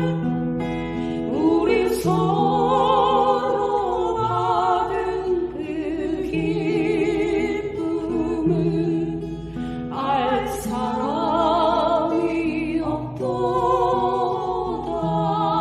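A Christian praise song (찬양): a voice singing long phrases with vibrato over instrumental accompaniment that holds steady low notes.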